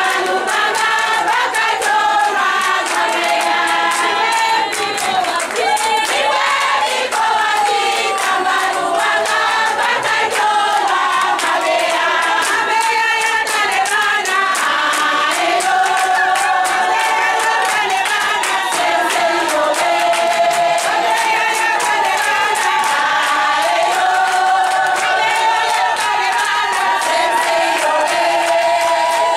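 A large group of women singing together in chorus, with hand clapping running under the song.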